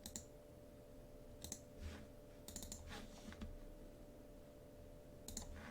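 Faint, scattered clicks of a computer mouse and keyboard being worked, about a dozen irregular clicks, over a faint steady electrical hum.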